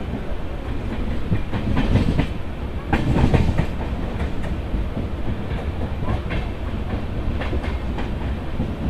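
Train running on rails: a steady low rumble with irregular clicks and clacks of the wheels over rail joints, the loudest cluster about three seconds in.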